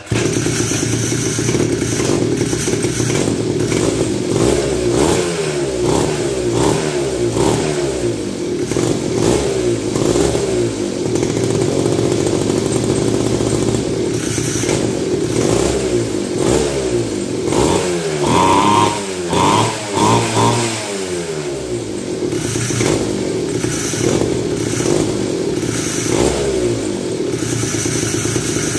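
A 49 cc two-stroke mini ATV engine running through a custom exhaust and revved up and down again and again, with a quick run of sharp throttle blips a little past the middle.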